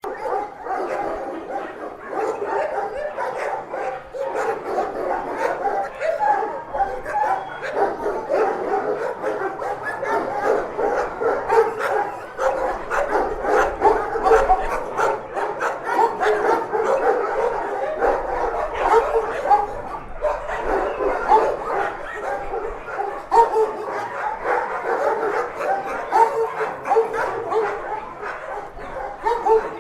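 Many dogs in a dog shelter barking, yipping and whining at once, a continuous overlapping chorus with no pause.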